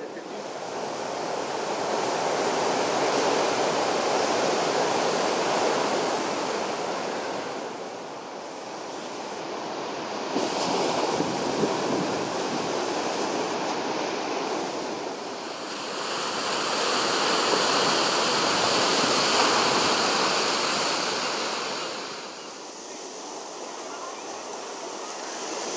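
Ocean surf breaking and washing up a beach: a steady rushing noise that swells and eases every several seconds.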